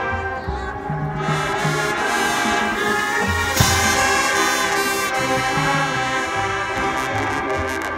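Marching band brass playing sustained chords over moving low bass notes, with one sharp hit that stands out about three and a half seconds in.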